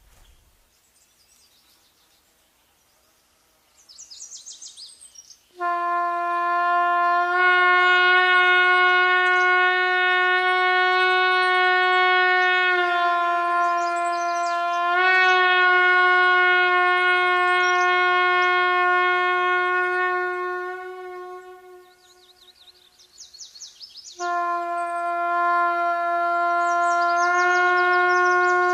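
Music: long, steady notes blown on a horn, each preceded by short bird chirps. After a few seconds of near silence, the first note holds for about fifteen seconds and steps slightly up in pitch midway; a second note begins a few seconds before the end.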